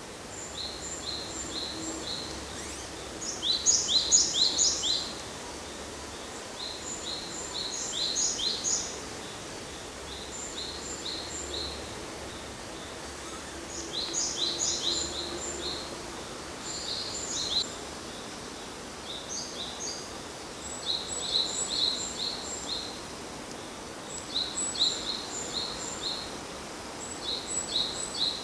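A small songbird singing short, high-pitched chirping phrases every few seconds over outdoor ambience. Twice there are faint low hoots, about two seconds in and again around fourteen seconds, which the uploader believes are soft calls of a Ural owl.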